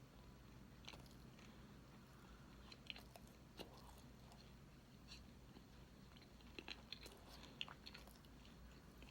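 Faint close-up eating sounds of a person chewing cake, with scattered small wet clicks and smacks from the mouth.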